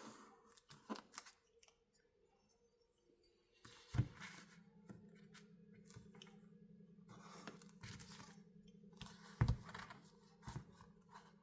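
Hand crafting sounds of bookbinding work: scattered taps and knocks of a tool on the work surface and short stretches of paper rustling or cutting. A faint steady hum joins about four seconds in.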